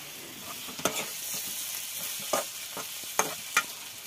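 Potatoes frying in hot oil in a pan for aloo bhujiya, sizzling steadily while being stirred, with several irregular scrapes of the stirring utensil against the pan.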